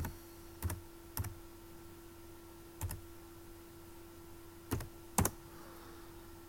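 Six slow, separate keystrokes on a computer keyboard, unevenly spaced, typing out the end of a terminal command; the last is the Enter key that runs it.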